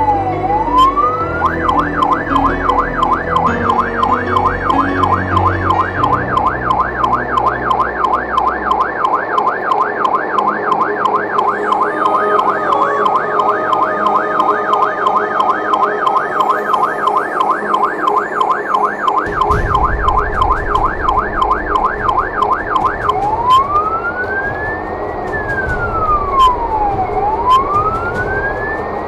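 Fire engine's siren, heard from inside the cab. It starts as a slow rising-and-falling wail, switches about a second and a half in to a rapid yelp, and changes back to the slow wail near the end, over the truck's engine and road noise.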